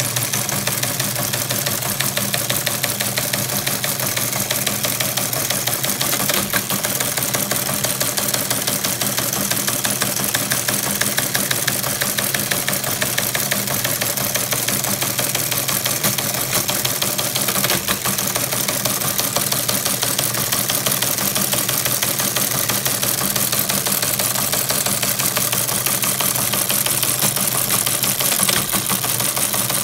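Early-1940s Army Teletype Model 15 printing an incoming news feed: a continuous rapid clatter of typebars striking the paper and the printing mechanism working, over the steady hum of its running motor.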